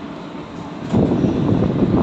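Passenger train coaches rolling past on the rails, a steady rumble that turns louder and rougher about a second in.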